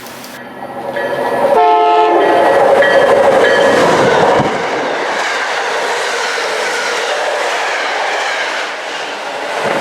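Commuter rail train passing through a station at speed: its locomotive horn sounds a chord for about three seconds, starting about a second and a half in. This is followed by the steady rush of the cars going by.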